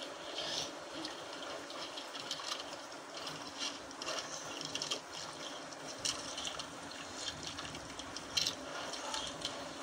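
Sea water lapping and splashing against the hull of a small outrigger boat, a steady watery wash with a few light knocks.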